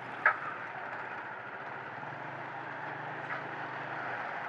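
Motorcycle engine running steadily under a haze of street-traffic noise, with one brief sharp sound about a quarter second in and a fainter one about three seconds later.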